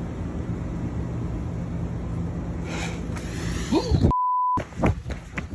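A steady low rumble, then about four seconds in a half-second 1 kHz censor bleep that replaces all other sound. A quick series of sharp knocks follows.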